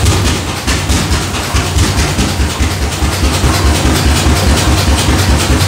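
Rumley OilPull tractor engine running at a steady, even rhythm of heavy low exhaust beats.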